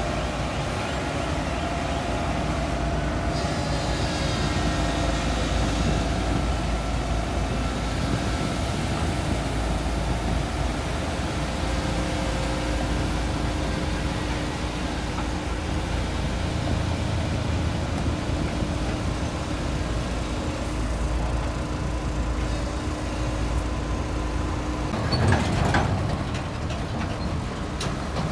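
Heavy diesel machinery running steadily: a hydraulic excavator and the pump engine of a sand-dredging barge, a continuous rumble with a few faint steady tones. A short, loud clatter comes near the end.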